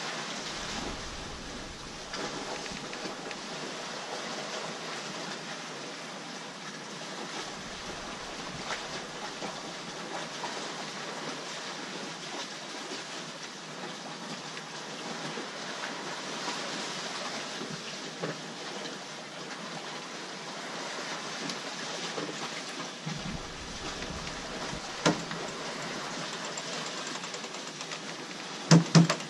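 Steady rush of wind and water on a sailing yacht under way, with wind rumbling on the microphone at times. A sharp knock comes about 25 seconds in, and two loud knocks come close together near the end.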